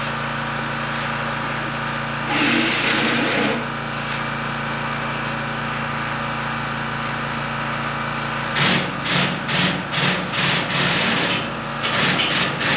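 Rhythmic back-and-forth scraping strokes, about three a second, start a little past halfway and pause briefly before resuming. They sit over a steady machine hum, with a short hiss about two seconds in.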